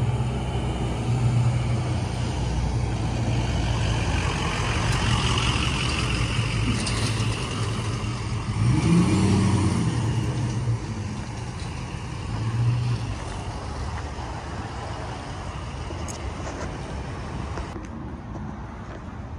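Pickup truck engine running with a steady low hum. Its pitch rises and falls once about nine seconds in, and the hum fades after about thirteen seconds.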